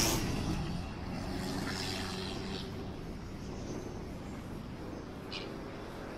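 City road traffic: a passing vehicle fades out over the first second, leaving a steady traffic hum, with a short hiss about five seconds in.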